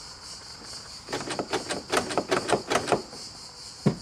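Plastic inside door handle of a car being pulled and let go rapidly, clicking about five times a second for two seconds, then one heavier knock near the end as it is released. The pulls do not open the door: the latch mechanism behind the handle is broken.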